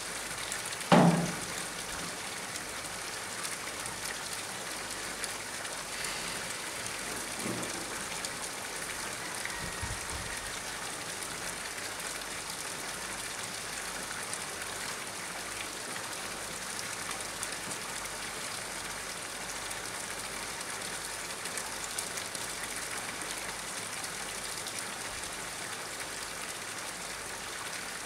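Steady hiss of water falling and splashing onto a pond's surface, with one sharp thump about a second in and fainter knocks around eight and ten seconds.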